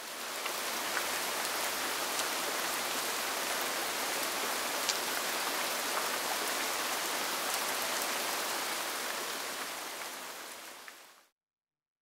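Steady rain falling on a paved footpath and grass: a dense, even hiss with an occasional sharp tick of a single drop. It fades in at the start and fades out near the end.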